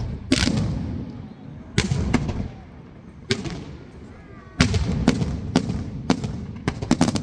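Aerial firework shells launching and bursting: a string of sharp bangs, each trailing off in a low rumbling echo, coming in a quick cluster near the end.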